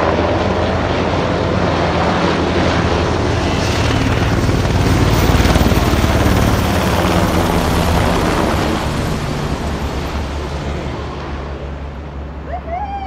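Low-flying UH-60 Black Hawk–type military helicopter passing overhead: steady rotor and turbine noise, loudest about five to six seconds in as it passes above, then fading away over the last few seconds.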